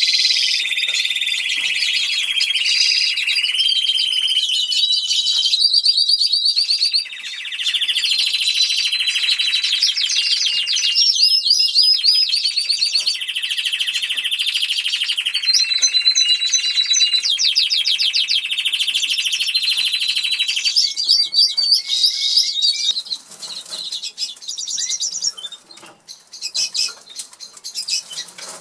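Canary singing a long, continuous high-pitched song of rolling trills and held whistled notes, which stops about 23 seconds in; a few short chirps and light clicks follow near the end.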